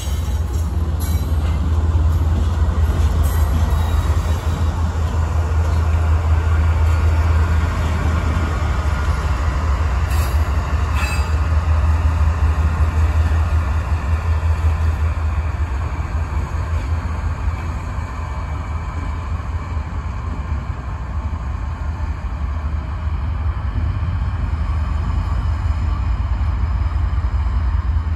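Union Pacific diesel locomotives running as they move along the yard tracks: a loud, steady low rumble, with a faint squeal of wheels on rail and a few clicks about ten seconds in.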